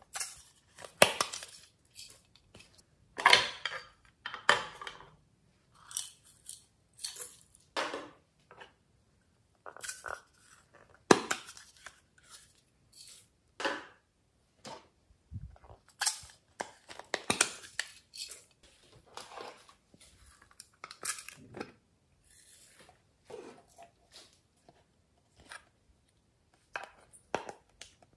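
Hard plastic toy cases being handled over a glass dish: irregular taps, clicks and scrapes, some sharp and loud, with short quiet gaps between them.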